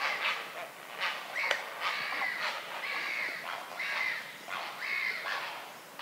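Grey herons calling at the nest: a string of short, harsh croaking calls, more than one a second and uneven in spacing.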